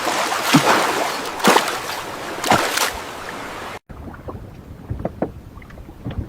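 Water rushing and splashing, with three surges about a second apart, then a sudden cut to a much quieter stretch of small drips and clicks.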